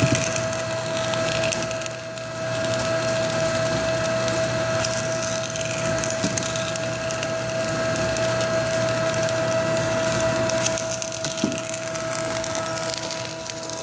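Corn tube extruder (DP Korea DSC-3500) running steadily with a low hum and a constant high whine, over dense crackling as the puffed rice snack comes out of the machine.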